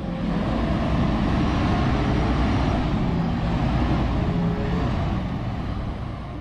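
Truck engine running: a steady low rumble with a faint wavering hum, swelling up in the first second and dying away near the end.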